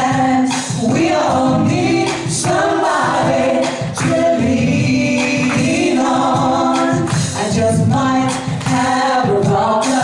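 Two women singing a duet live into handheld microphones over backing music with a steady beat.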